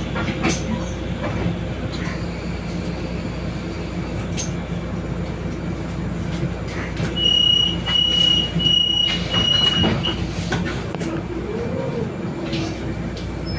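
Solaris Urbino 18 III articulated bus idling at a standstill, heard from inside the cabin as a steady low hum. About halfway through, a run of five short, high electronic beeps sounds from the bus.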